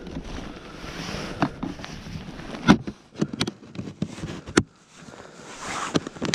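Flambeau hard plastic rod case being handled: an ice rod is lifted out and the lid shut, making about half a dozen sharp plastic clicks and knocks over a soft rustling.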